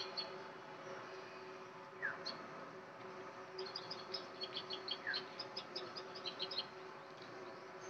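Birds calling in the trees: a short falling whistle repeats about every three seconds, and a quick run of high chirps comes in the middle, over a faint steady hum.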